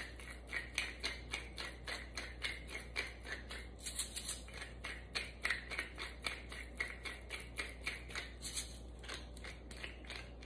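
Hand pepper mill being twisted to grind pepper: a steady run of quick, gritty clicks, several a second, stopping near the end.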